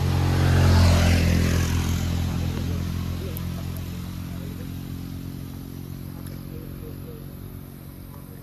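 A vehicle engine running steadily, loudest about a second in and then slowly fading away.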